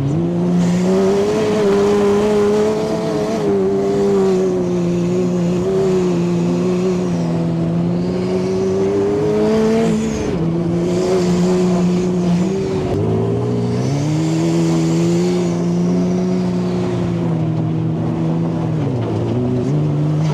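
Turbocharged Honda engine of a sandrail running at steady cruising revs, its pitch dipping and recovering a few times as the throttle is eased and reapplied.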